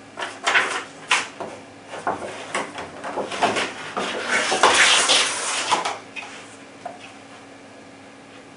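Clear plastic packaging crinkling and scraping as a rubber-overmolded rifle stock is pulled out of it, a run of irregular rustles and light knocks that stops about six seconds in.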